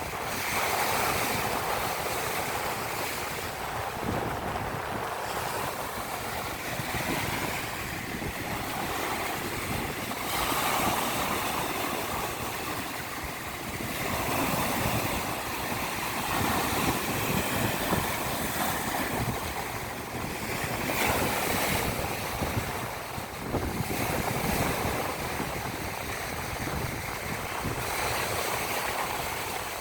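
Baltic Sea surf washing onto the beach, the noise swelling and falling back every few seconds, with wind.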